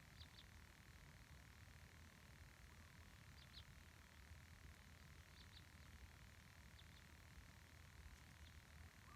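Near silence: faint background with a few very short, high chirps from a small animal, spaced a second or two apart.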